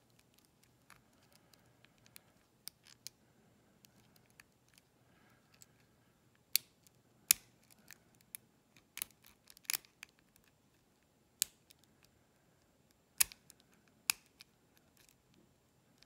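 Irregular sharp metallic clicks of a lock pick working the pins of a pin-tumbler lock held under a tension wrench, faint at first with louder clicks in the second half.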